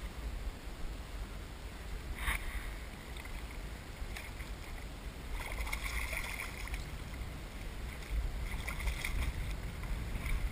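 A hooked fish splashing at the surface of shallow water as it is reeled in: a short splash about two seconds in, a longer run of splashing around six seconds, and more near the end, over a low rumble of wind on the microphone.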